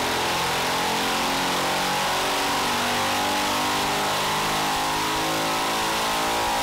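Predator 212 Hemi-based 223cc stroker engine, a single-cylinder four-stroke, at full throttle under load on an engine dyno. It revs steadily upward from about 5,000 to about 6,000 rpm during a dyno pull.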